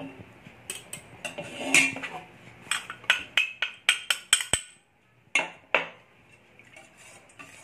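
Glass bowl clinking and tapping against a stainless steel pot as cornstarch is tipped and scraped out of it: a run of sharp clinks, a short pause, then two more clinks.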